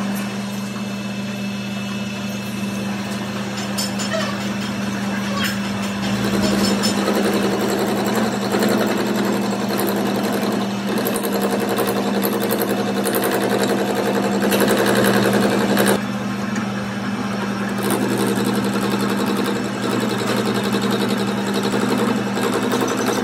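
Metal lathe running with a pinion gear spinning in its chuck: a steady hum from the motor and gearing, with the scraping noise of the cutting tool on the metal rising and falling. It is loudest for a second or so past the middle, then drops suddenly.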